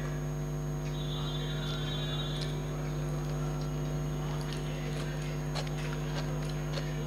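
A steady electrical hum with soft mouth clicks and chewing from a person eating rice and curry by hand. A brief faint high tone sounds about a second in.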